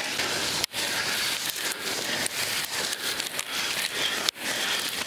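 Tall grass rustling and swishing as several people walk through it, with two brief breaks in the sound.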